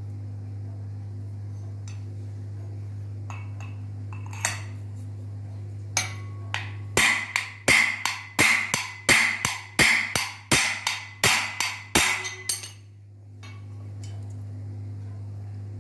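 A hammer tapping a new ball bearing into place on a ceiling fan, driven through the old bearing laid over it. A few light taps come first, then a run of about fifteen sharp metallic strikes, two to three a second, each with a brief ring.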